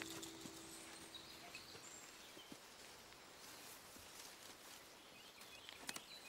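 Faint outdoor quiet with soft footsteps and rustling through undergrowth on a forest floor, and a short cluster of cracks or snaps near the end.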